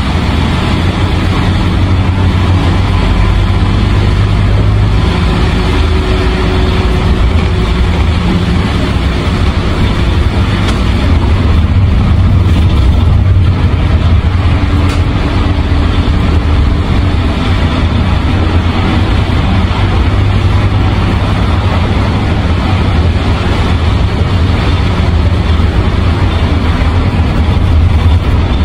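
Cabin running noise of an Isuzu Erga 2KG-LV290N3 city bus driving between stops: a steady low drone from its four-cylinder diesel engine, with road noise.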